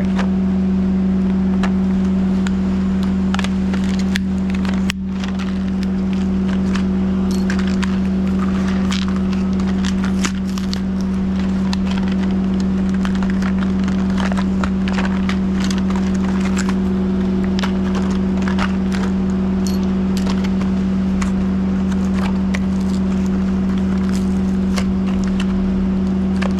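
Steady hum throughout, the loudest sound, with many scattered small clicks and rattles of a plastic case and small metal screwdriver bits being handled and opened.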